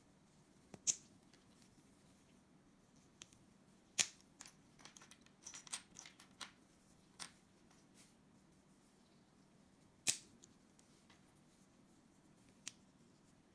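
Small plastic building-block pieces clicking as they are handled and pressed together: sharp single clicks about a second in, at about four seconds and at about ten seconds, with a flurry of lighter clicks and rattles in between.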